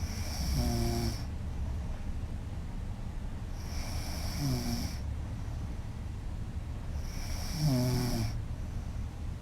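A woman snoring loudly: three snores about three and a half seconds apart, each a noisy breath with a short buzzing tone in it, over a steady low hum.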